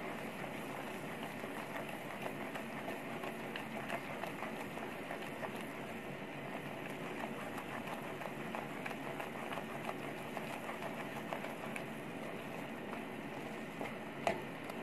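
Scrambled egg and onion masala sizzling in a non-stick frying pan while a slotted spatula stirs and scrapes through it, with many small crackles; a couple of sharper clicks near the end.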